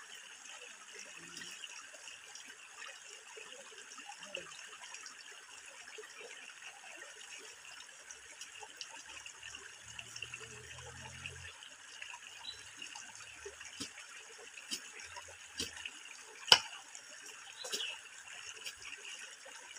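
Running water flowing steadily, with scattered small knocks and one sharp knock about three-quarters of the way through.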